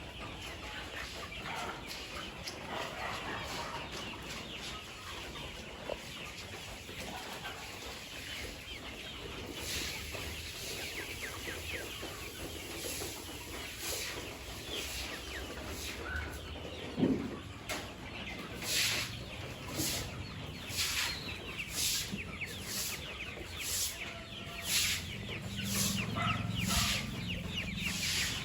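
A flock of Kuroiler chickens clucking and peeping continuously. In the second half there is a run of sharp taps, roughly one a second.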